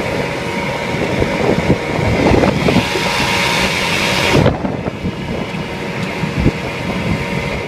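8 hp Johnson outboard motor running under way on an inflatable boat, with heavy wind buffeting the microphone. A loud hiss eases off about four and a half seconds in.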